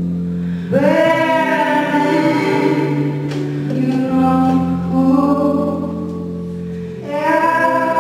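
Live female vocal singing long, held notes over a steady, sustained low accompaniment. One sung phrase begins just under a second in, and another begins near the end.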